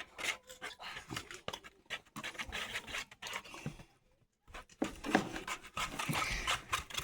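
A spoon stirring white glue in a bowl, with irregular scraping and clicking against the bowl that drops out briefly about four seconds in.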